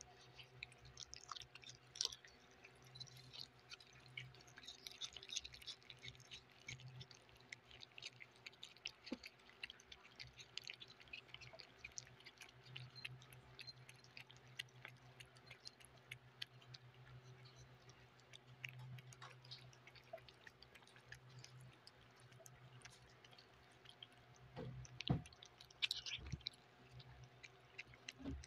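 Three cats chewing chicken adobo and liver close to the microphone: a steady run of soft, wet clicks and smacks, with a few louder ones near the end. A steady low hum runs underneath.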